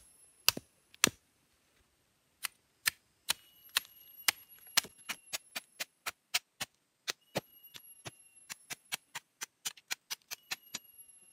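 Machete blade chopping again and again at the fibre-covered rhizome of a cu li fern (Cibotium barometz), trimming off its hairy coat. Sharp chops: two early on, a pause of over a second, then a quickening run of about three to four chops a second.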